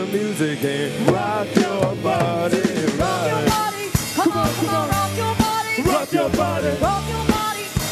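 Live band playing loud amplified music: drum kit with regular hits, electric guitar and a singer over it.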